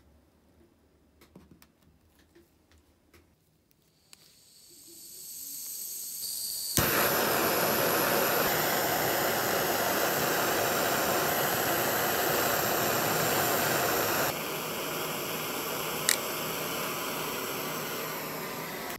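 Handheld gas blowtorch burning with a steady hiss while heating a small steel part red-hot for oil bluing (blackening). The hiss swells after a few faint clicks and becomes loud and even about seven seconds in. It eases a little about two-thirds through, with one sharp click near the end.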